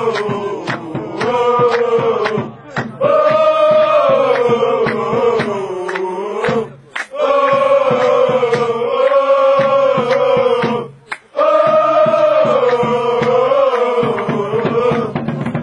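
Music: a chanted vocal melody sung in long, drawn-out phrases of about three to four seconds each, with short breaks between them.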